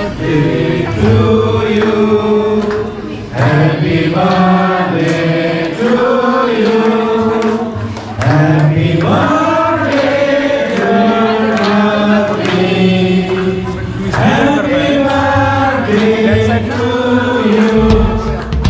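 A group of voices chanting or singing together in slow phrases of one to two seconds, with long held notes.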